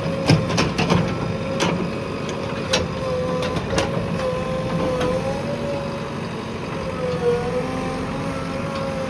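JCB 3DX backhoe loader's diesel engine running steadily with a whine that wavers slightly in pitch, and several sharp clanks in the first few seconds.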